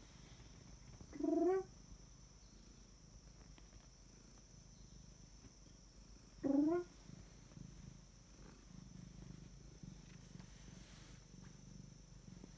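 Domestic cat purring steadily, with two short rising meows about five seconds apart.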